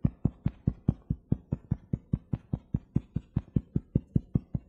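Fingertips tapping steadily on the collarbone point in EFT tapping, about five even taps a second, picked up close by a clip-on microphone.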